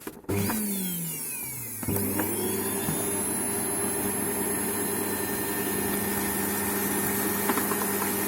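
Household vacuum cleaner motor switching on at its minimum power setting. Its pitch shifts over the first two seconds, then it runs with a steady hum while drawing air through a tube into a paint-bucket shop-vac separator.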